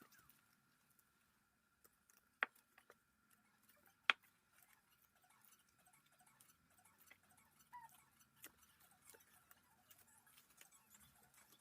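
Near silence: quiet room tone with faint scattered ticks and two sharp clicks, about two and a half and four seconds in.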